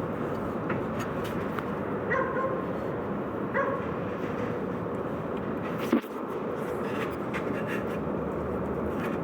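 Peugeot 206 RC running with a steady rumble, with a few short high-pitched squeaks about two and three and a half seconds in and a single sharp knock about six seconds in.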